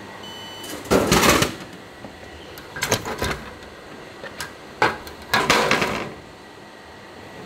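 A short electronic beep, then several bursts of clattering and rattling, the longest near the middle and near the end, over a steady background hum.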